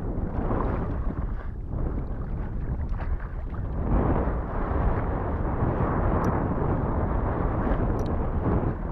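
Water sloshing and splashing around a hunter wading through shallow marsh water, with wind rumbling on the microphone. It grows louder about four seconds in, as a downed duck is lifted from the water.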